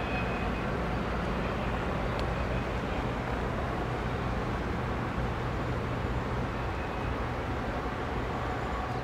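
Diesel freight train locomotives rumbling steadily, a low engine drone under a broad rushing noise.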